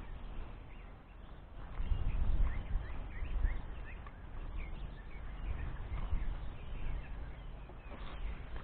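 Wind rumbling on the microphone, loudest a couple of seconds in, with faint short bird chirps scattered throughout.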